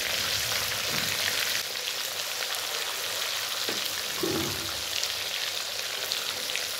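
Catla fish pieces frying in hot mustard oil in a kadhai: a steady sizzle. A metal spatula moves in the pan a few times as the pieces are turned.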